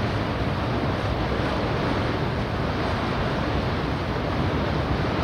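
Steady rush of churning water and wind, with a low rumble beneath, from a cross-channel ferry departing port. No siren or clatter here; the level holds even throughout.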